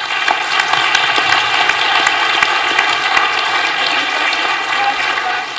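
Audience applauding, many hands clapping together steadily, easing off slightly near the end.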